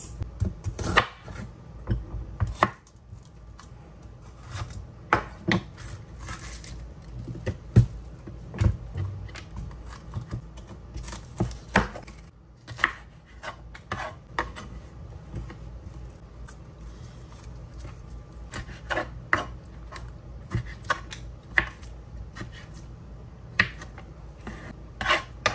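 Chef's knife slicing bell peppers on a wooden cutting board: irregular knocks of the blade striking the board, with a few short pauses between runs of cuts.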